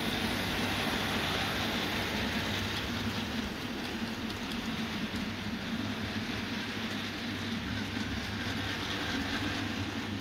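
OO gauge model goods train running along the track, a steady rolling hiss of small wheels on rails with a low motor hum.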